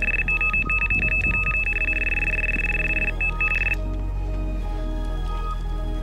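Electronic carp bite alarm sounding a run: a single high electronic tone that beeps very rapidly and then holds almost continuously, breaking off about three and a half seconds in, the sign of a fish taking line on the left-hand rod. Background music plays underneath.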